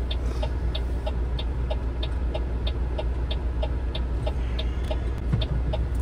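Truck's turn-signal indicator ticking evenly, about two ticks a second, over the steady low hum of the truck's engine idling, heard inside the cab.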